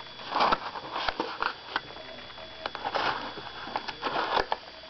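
Serrated folding knife sawing and scraping through the packing tape and cardboard of a mailing box: irregular scratchy rasps mixed with sharp clicks and taps.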